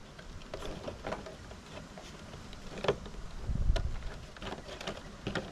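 Handheld can opener clicking and scraping irregularly on the rim of a tin can as it is clamped on and worked by hand. A brief low rumble of wind on the microphone comes a little past the middle.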